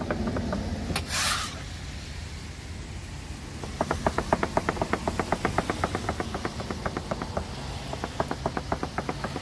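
Kitchen knife chopping rapidly into conch meat on a cutting board to tenderize it for conch salad: fast, even knocks of the blade on the board, about five a second, starting about four seconds in. A brief hiss comes about a second in, over a steady low hum.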